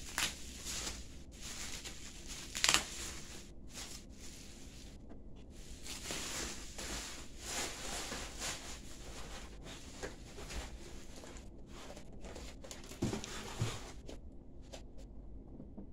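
Plastic bag crinkling and rustling as it is pulled off a wall clock and pushed into a cardboard box, with two dull thumps near the end; the crinkling stops shortly before the end.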